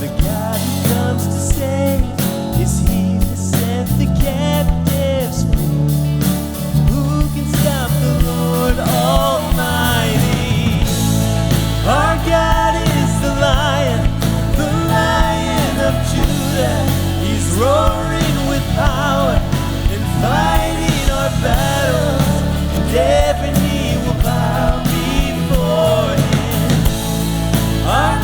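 Contemporary Christian worship band playing a rock-style song, with drums and guitar. Singing comes in about eight seconds in.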